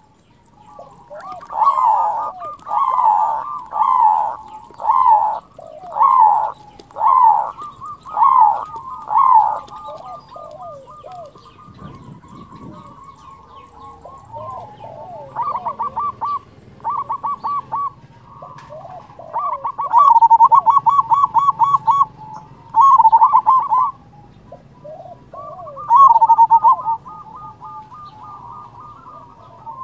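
A local zebra dove (perkutut) singing loudly: first a run of about eight coos, roughly one a second, then after a short lull, bursts of rapid stuttering trills. The loudest bursts come about two-thirds of the way through and near the end.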